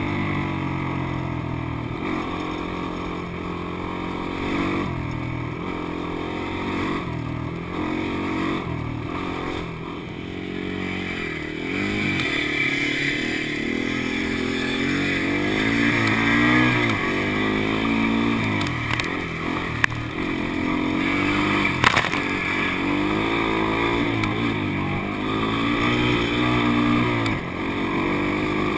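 ATV engine running hard and revving up and down as the quad is ridden fast and slid on a dirt trail. Two sharp knocks come about two-thirds of the way through.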